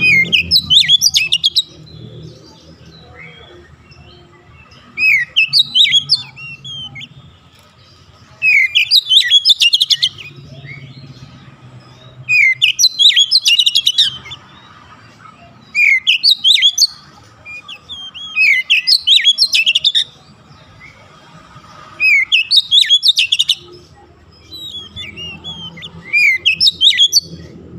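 Oriental magpie-robin singing: eight loud phrases, one every three to four seconds, each a quick run of high chattering notes and whistled up-and-down sweeps lasting one to two seconds.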